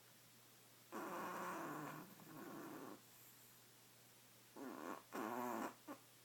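A sleeping badger snoring: two rasping snores, the first about a second in and lasting about two seconds, the second near five seconds with a short snort at its end.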